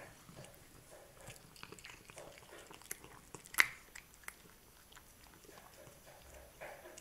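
Two Siamese cats licking and chewing a snack off a small metal spoon: a run of small wet smacks and chewing clicks, with one sharp click about halfway through.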